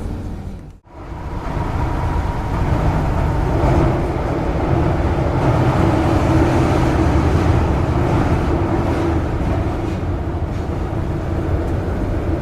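Paris Métro train running, heard from inside the carriage: a steady rumble with a faint held hum. It cuts out sharply about a second in, then builds back and stays level.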